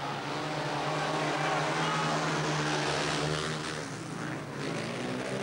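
A pack of speedway bikes, each with a 500 cc single-cylinder methanol engine, racing round the track with their engine notes bending up and down in pitch. They are loudest in the middle and ease off a little near the end as the pack moves on.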